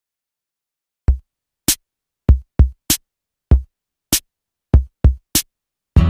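Sparse drum-machine intro: about ten separate beats starting about a second in, deep kick-drum hits mixed with sharp, bright high hits, with silence between them.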